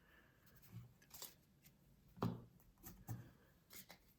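Trading cards being handled and moved about: a series of soft taps and rustles, about six, the loudest a little over two seconds in.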